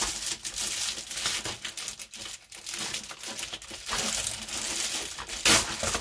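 Padded plastic mailer crinkling and crackling as it is handled and pulled open, with one louder crackle about five and a half seconds in.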